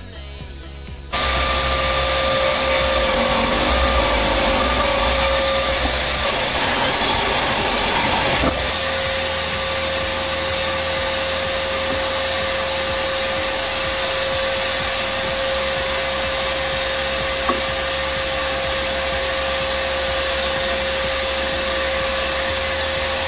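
DeWalt benchtop thickness planer with a Shelix helical cutterhead starting up about a second in and running with a steady whine. It sounds rougher for the first several seconds while a board is fed through, then settles to an even run about eight seconds in.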